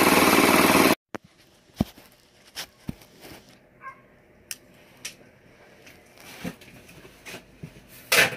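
Snowblower's 8 hp Briggs & Stratton engine running steadily for about a second, then cutting off abruptly. Faint scattered clicks and knocks follow, about one every half-second to second.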